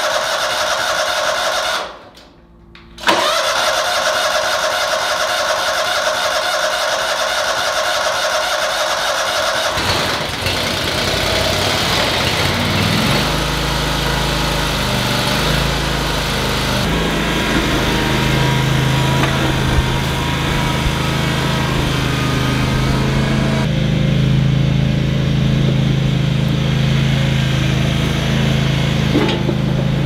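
Toro Wheel Horse 522xi garden tractor's engine cranking, with a brief cut about two seconds in, then catching about ten seconds in and settling into steady running. The engine runs with a new fuel pump fitted, which points to the old pump as the cause of the no-start.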